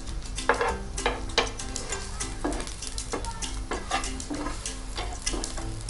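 Vegetable pancakes sizzling in oil on a flat griddle (tawa), with a steel spatula scraping against the pan in a series of short strokes as it slides under a pancake and lifts it.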